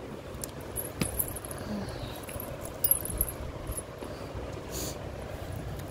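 A steady low rumble of room noise with a few faint sharp clicks, about a second in and again about three seconds in.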